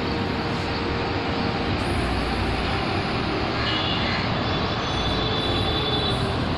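Steady traffic noise from vehicles passing on the elevated road overhead, with a faint high whine briefly near the middle.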